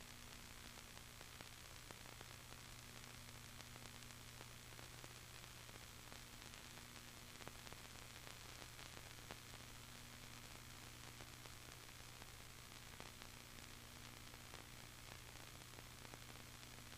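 Near silence: a faint steady hiss with a low electrical hum.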